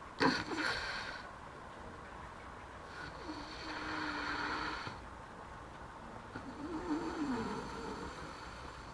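A sleeping woman snoring: a sharp snort just after the start, then two longer snores a couple of seconds apart, the second wavering in pitch.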